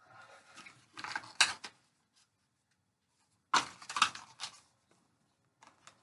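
Plastic camcorder parts and their cardboard box being handled: rustling and sharp clicks about a second in and again near the middle, with a short pause between.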